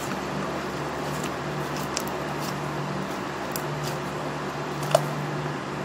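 Homemade glue slime being stretched and kneaded by hand, with faint sticky clicks and one sharper pop about five seconds in, over a steady low hum.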